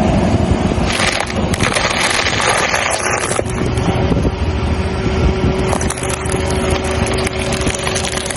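Car tyre rolling over crunchy objects and crushing them: a dense run of crackles and scraping from about a second in, over the low noise of the car.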